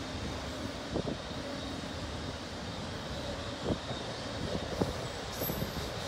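Autorack freight cars rolling past on the rails, a steady rumble of wheels with a few sharp clanks scattered through it.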